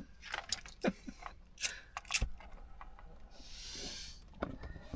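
Scattered clicks, taps and rustles of wires and plastic dashboard parts being handled, with a short hiss about three and a half seconds in.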